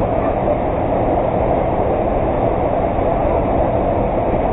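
Steady rushing roar of a waterfall, loud and even throughout.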